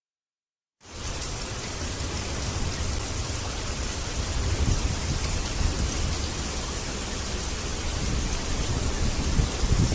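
Steady rain falling outdoors, with a low rumble underneath; it starts abruptly about a second in.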